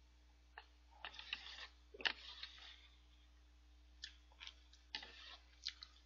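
Faint close-up eating sounds of a person eating udon noodles: two short slurps from the bowl about a second in, then small wet chewing and mouth clicks.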